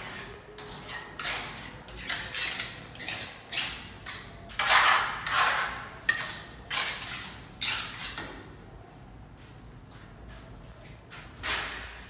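Trowel scraping and smearing wet cement mortar onto the side of a concrete staircase: a series of short rasping strokes, about one to two a second, which pause for a few seconds before one more stroke near the end.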